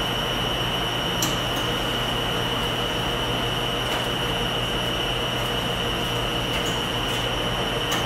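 Laundromat ambience: the steady drone of running washing machines and dryers, with a constant high whine over a low hum and a few faint clicks.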